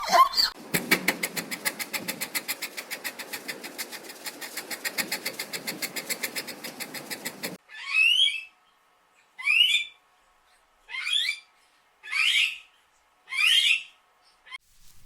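Animal sounds: a rapid pulsing rattle for about seven seconds that stops abruptly, then five short calls about a second and a half apart, each sweeping up and down in pitch.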